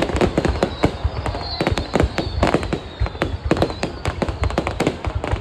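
Fireworks going off in rapid succession: a dense run of sharp bangs and crackles, several a second, with a faint high whistle gliding through the middle.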